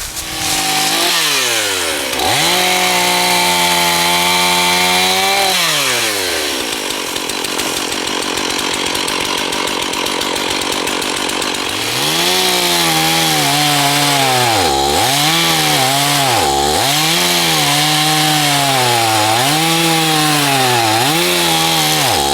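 Stihl chainsaw revving to full throttle, then cutting into a pine trunk for the face notch. Over the last ten seconds the engine pitch repeatedly dips and climbs back as the throttle is let off and squeezed again.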